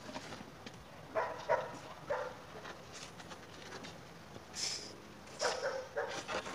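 A dog barking repeatedly: a run of short barks about a second in, then another run near the end.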